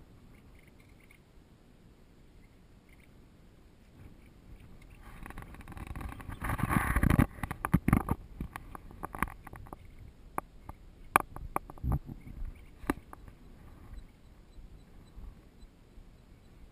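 Rubbing and scuffing against the car body close to the microphone for about two seconds, then a run of sharp knocks and taps, as an African elephant presses up beside the vehicle.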